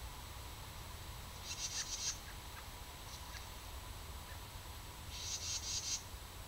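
An animal's call: two short, high-pitched, rapidly pulsed trills, the first about a second and a half in and the second about three and a half seconds later, over a low steady rumble.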